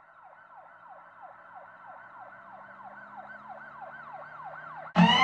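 Ambulance siren sound effect in a fast yelp, each cycle a quick falling sweep at about three a second, growing slowly louder as if approaching. Near the end a much louder, brief sound with several falling tones cuts in.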